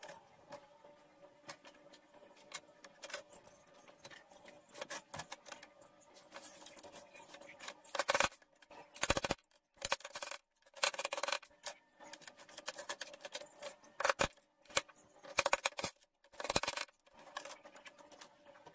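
Dry slatted bamboo being handled: scattered light clicks and clatter as slats knock together, with short scraping rustles in the middle stretch.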